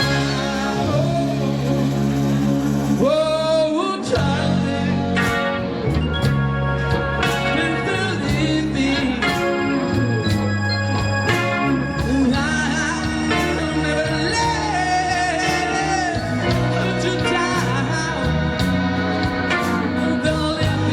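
Oldies rock song playing: a singing voice over guitar, with a steady beat.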